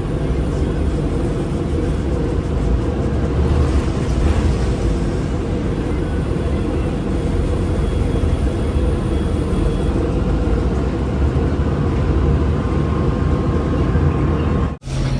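City transit bus running: a steady engine and drivetrain rumble with a faint whine over it, which cuts off abruptly shortly before the end.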